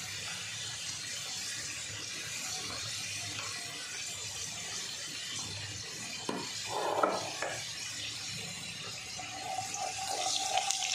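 Whole cumin seeds sizzling steadily in hot oil in a non-stick pan, tempering for a curry base. There is a short knock about six seconds in, and near the end a wooden spatula stirs the seeds through the oil.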